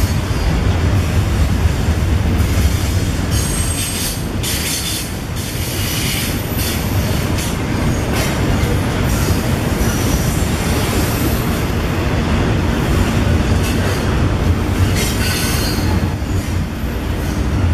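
Union Pacific double-stack container train rolling past: a steady low rumble of steel wheels on rail. High-pitched wheel squeal rises over it about four seconds in and again near the end.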